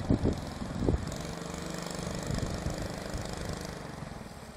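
Jet canoe's small engine running steadily at an even pitch, growing fainter as the boat moves away. Wind buffets the microphone in the first second.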